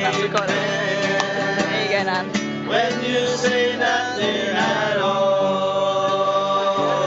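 A group of men singing together to a strummed acoustic guitar, close up, ending on a long held note.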